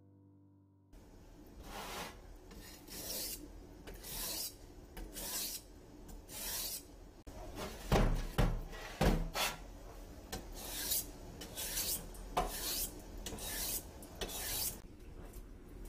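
Kitchen knife being sharpened on a wet whetstone: rasping scrape strokes, roughly one a second, with a few louder knocks about halfway through. Soft piano music ends just before the scraping begins.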